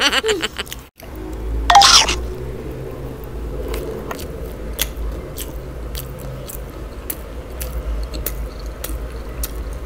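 Close-miked chewing of a mouthful of fried chicken burger, with many small wet mouth clicks and soft squishes. A short vocal sound breaks in about two seconds in.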